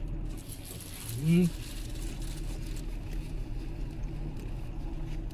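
A person's short, rising 'mm?' about a second in, over a steady low hum inside the car's cabin.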